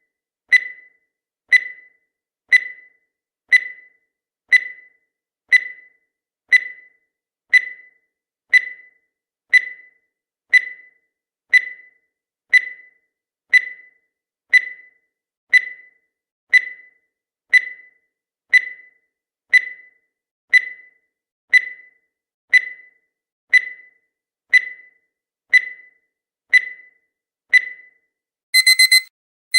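Digital countdown timer sound effect: a short, high electronic tick once a second that fades quickly, about 28 in a row. Near the end the timer's alarm goes off in rapid groups of shrill beeps.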